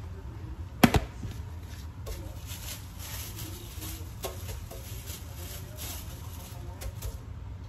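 A single sharp knock about a second in, then soft scattered handling sounds as a ball of corn masa is worked by hand at a tortilla press, over a steady low hum.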